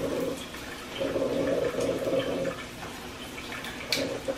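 Utility lighter clicking as a jar candle is lit, with one sharp click near the end. Under it is the rushing of water heating on the stove, which swells and fades.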